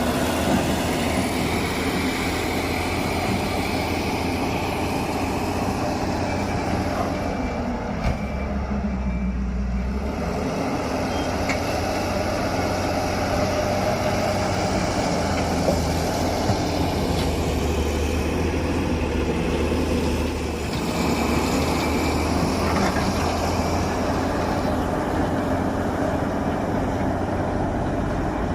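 Tata 340 backhoe loader's diesel engine running steadily while it works. The engine eases for a moment about eight seconds in and again about twenty seconds in.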